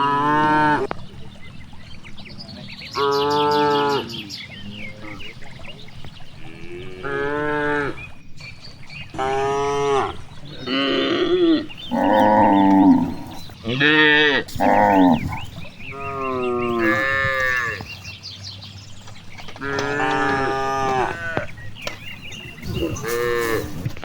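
Cattle mooing: about a dozen short moos one after another, at differing pitches, some overlapping.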